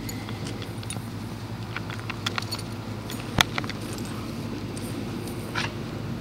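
1969 Lennox central air-conditioner outdoor unit running with a steady hum from its compressor and fan. Scattered light clicks and rattles sound over it, with one sharp click a little past halfway.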